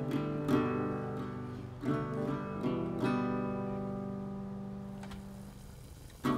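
Acoustic guitar music: a few strummed chords, the last one left to ring and slowly fade away.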